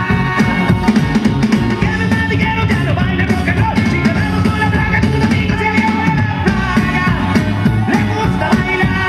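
Loud rock music with singing and a steady beat.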